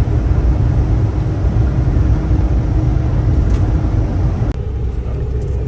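Steady road and engine noise of a 2019 Ford Transit camper van driving on the highway, heard from inside the cab. The hiss thins suddenly about four and a half seconds in.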